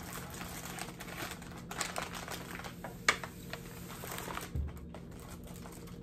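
Plastic snack wrappers being handled and opened at a table: crinkling and rustling with scattered small clicks, a sharper click about three seconds in, and a soft thump about four and a half seconds in as a package is set down.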